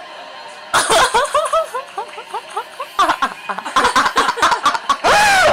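People laughing hard in quick repeated bursts, starting loud about a second in, with a longer sustained outburst near the end.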